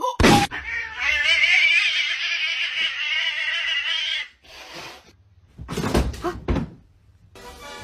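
A grey cat, back arched in fright, gives one long wavering yowl lasting about three seconds. A sharp knock comes at the start, and a couple of thumps follow about six seconds in.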